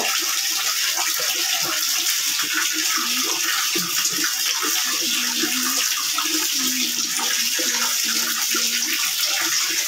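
Water running steadily into a plastic bucket in a small tiled bathroom, with water poured from a plastic dipper splashing down.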